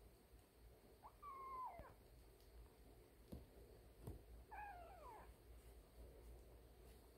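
Kitten mewing twice, faint: two short high-pitched mews about three and a half seconds apart, each dropping in pitch at the end, with a couple of soft knocks between them.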